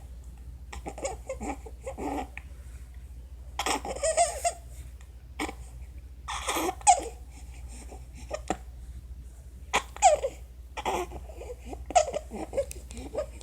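Infant with laryngomalacia laughing and babbling in a string of short bursts.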